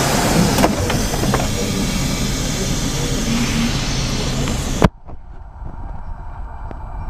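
A Moscow Metro 81-740 Rusich car stands in the station with its doors open, a loud steady noise of platform and ventilation coming in. About five seconds in the doors thud shut and the noise drops sharply to a quieter hum, which begins to rise near the end.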